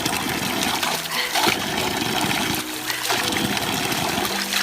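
Spring water pouring from a spout and splashing, with a steady trickle.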